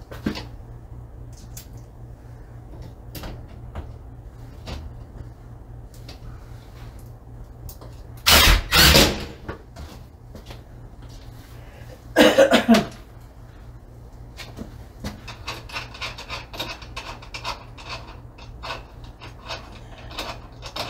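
Cordless drill driving screws in two short bursts, about eight and twelve seconds in, fixing a bus bar to the wall. Small clicks and handling knocks fill the rest, thickening near the end, over a faint low hum.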